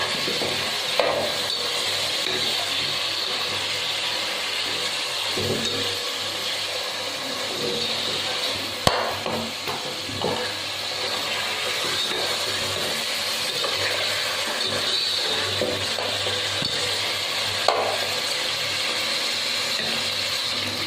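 Chicken pieces frying with onions in hot oil in a pan: a steady sizzle as a spatula stirs them, with a couple of sharp knocks of the spatula against the pan, the loudest about nine seconds in.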